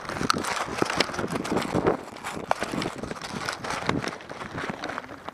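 Irregular crunching and rustling with many sharp clicks, typical of a player moving quickly over dirt and through brush with gear jostling.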